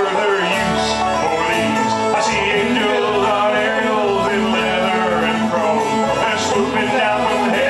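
Live acoustic string band playing an instrumental break in bluegrass style: fast picked notes over strummed acoustic guitar and bass, with no singing.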